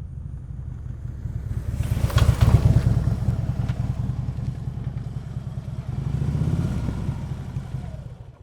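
Harley-Davidson touring bike's V-twin engine running through Vance & Hines Monster Oval slip-on mufflers as the bike is ridden by. The exhaust rumble is loudest about two to three seconds in, swells again near the end and then fades out.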